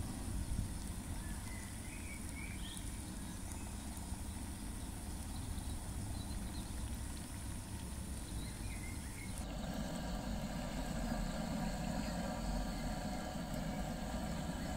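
Potato sticks deep-frying in a pan of hot oil, the oil bubbling and sizzling steadily over a low steady rumble. The sound changes abruptly about two-thirds of the way through.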